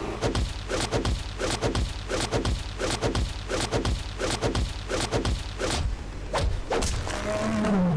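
Cartoon fight sound effects: a rapid flurry of punch thuds, about three a second, then a couple of heavier hits and a low falling voice near the end.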